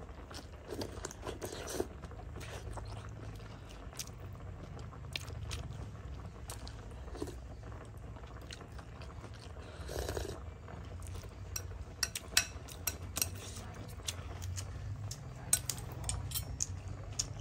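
Metal spoon clinking and scraping against a ceramic soup bowl as broth is scooped, with scattered sharp clicks that come more often in the second half, over a steady low hum.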